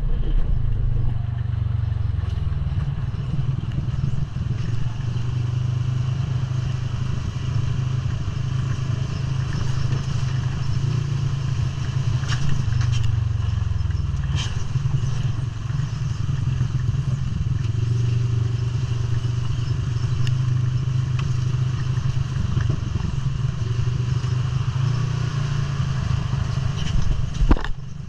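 ATV engine running steadily under way, with a few sharp knocks and rattles from the ride over the trail, the loudest near the end.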